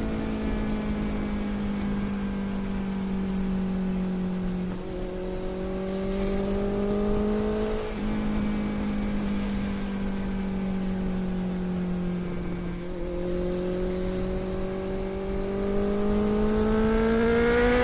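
Motorcycle engine running through a Scorpion aftermarket exhaust at a steady cruising speed, its note dipping briefly three times, then rising in pitch near the end as the bike speeds up. A low rush of wind and road noise sits underneath.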